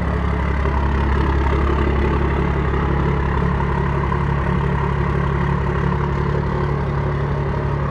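12-valve Cummins 5.9-litre inline-six diesel idling steadily, freshly started from cold after a hard start.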